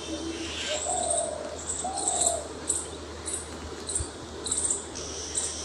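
Dove cooing, two short low coos in the first couple of seconds, with brief high chirps of small birds repeating about every half second through the middle.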